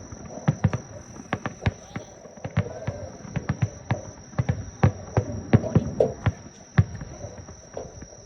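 Fireworks going off in a rapid, irregular string of sharp bangs and pops, several a second, with a steady thin high-pitched tone behind them.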